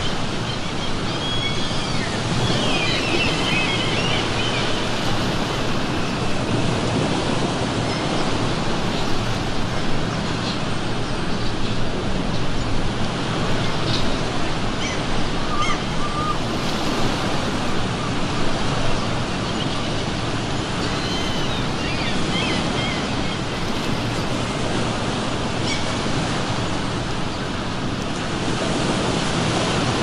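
Ocean surf washing in steadily, with seagulls calling now and then: a cluster of cries a few seconds in and another about two-thirds of the way through.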